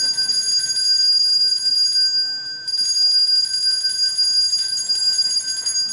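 Altar bells (sanctus bells) shaken in a rapid, continuous jingling ring, with a brief dip about two and a half seconds in. They mark the elevation of the consecrated host at Mass.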